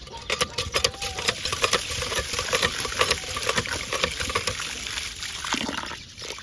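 Water splashing and pouring, with many irregular sharp clicks and clatter, easing off near the end.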